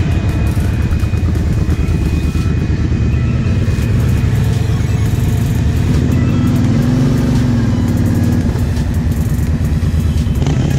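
Quad engines running steadily, with the revs rising and falling about halfway through. This is a Can-Am Renegade pulling a Kawasaki KFX 700 quad out of a deep rut on a tow strap.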